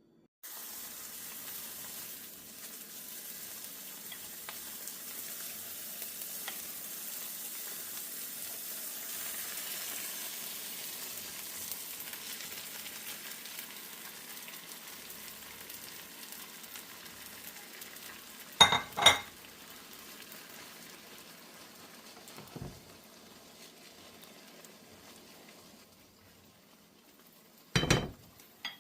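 Egg mixture for an omelette sizzling in a frying pan, the sizzle slowly fading. Two pairs of sharp knocks stand out, one about two-thirds through and one near the end, with a softer knock between them.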